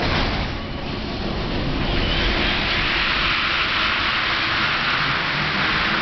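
Rubber-tyred Paris Metro MP73 train pulling out of the station. A low rumble is joined about two seconds in by a loud, steady rushing hiss as the train gets under way.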